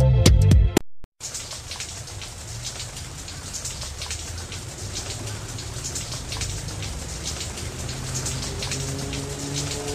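Electronic music with a beat cuts off about a second in. After a brief gap, the steady hiss and patter of rain takes over, and a few held musical notes come in under it near the end.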